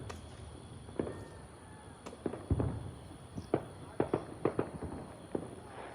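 Fireworks going off: about ten sharp bangs at irregular intervals, several coming in quick pairs.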